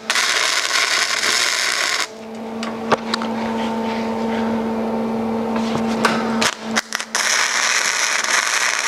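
Longevity Migweld 140 MIG welding arc crackling as two tack welds are laid on a steel lap joint. The first tack runs about two seconds, then comes a steady low hum with a click. The arc strikes again about seven seconds in and keeps going.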